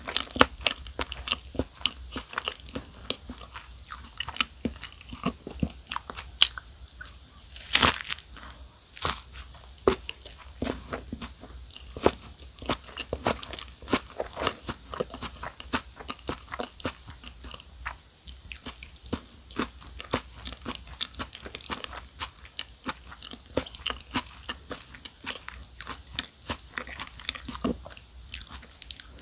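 Close-miked chewing and crunching of mouthfuls of a ricotta club sandwich filled with lettuce, tomato, ham, cheese and apple. There is a steady run of small irregular crunches, and one louder crunch comes about eight seconds in.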